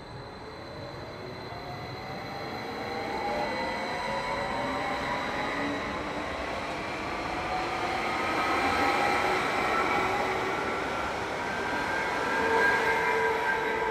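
SBB FLIRT electric multiple unit pulling away past the platform, its traction motors whining in several tones that climb steadily in pitch as it gathers speed, over the rumble of the wheels on the rail. It grows louder as it passes, loudest near the end.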